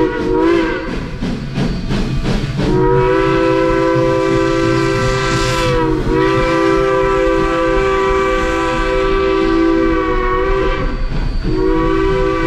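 Narrow-gauge Durango & Silverton steam locomotive passing close by: first its exhaust chuffs, then its chime whistle blows a long chord of several notes. The whistle sags briefly in pitch midway, breaks off near the end and sounds again.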